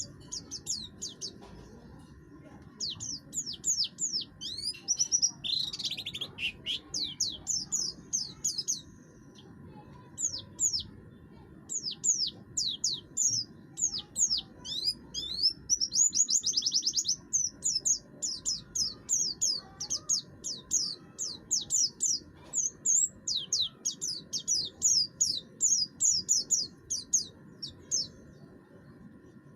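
A pleci buxtoni white-eye singing a harsh song: long runs of rapid, high, sharp notes that each sweep downward, twice breaking into a dense fast trill, with short pauses between runs.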